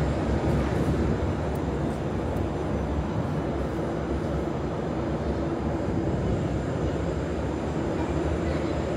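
Prague metro 81-71M train standing at the platform with its doors open, giving off a steady low hum and rumble that echoes around the underground station.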